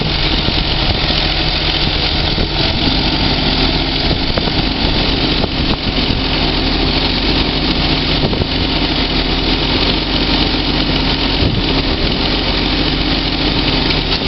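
Heavy diesel machinery running steadily: a Case IH Quadtrac 535 tracked tractor mired in mud, with an excavator working right beside it. A higher steady whine joins about three seconds in.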